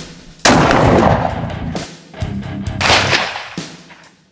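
Two shots from a Sulun Arms Tac-12 12-gauge straight-pull shotgun firing 1 oz rifled slugs, about two and a half seconds apart, each with a long fading echo.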